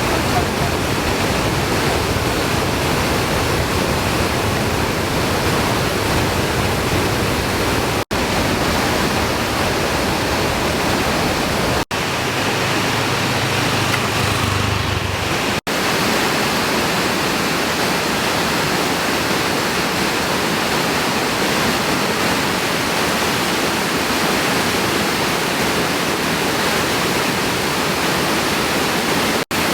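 Waterfall pouring: a loud, steady rush of falling water. It drops out for an instant three times where the shots change, and for a few seconds in the middle a stronger low rumble lies under it.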